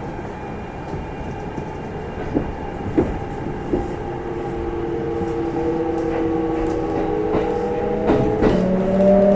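Kintetsu 1259-series electric train's motor car pulling away and gathering speed: the traction motor whine appears about four seconds in and rises steadily in pitch over the running rumble. There are a few sharp wheel clacks over rail joints a couple of seconds earlier.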